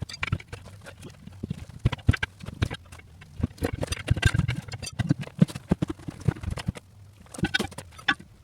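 Hand tools knocking and prying at a tire on its wheel, with irregular knocks and clanks.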